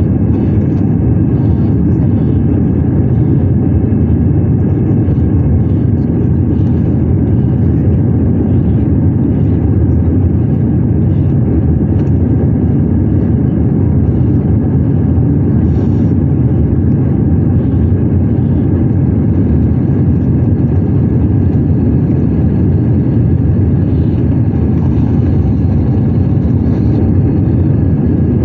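Steady cabin noise inside an Airbus A320-200 climbing out after takeoff: a deep, even rumble of the jet engines and the airflow over the fuselage.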